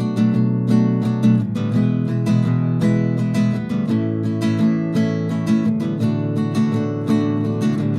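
Acoustic guitar music: a steady run of plucked and strummed notes with a regular rhythm.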